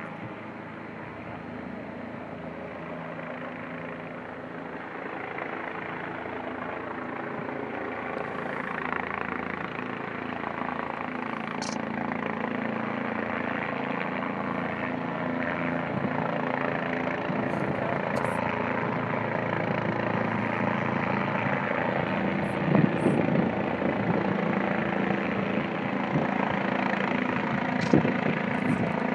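Bell 407 helicopter on final approach, its rotor and turbine engine growing steadily louder as it comes closer.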